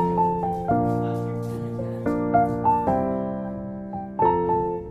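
Piano music: a melody and chords of struck notes, each starting sharply and fading away.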